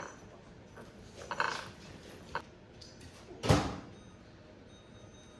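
Kitchen handling sounds: a few light clicks and knocks, then one louder thud about three and a half seconds in, like a cupboard door or drawer shutting.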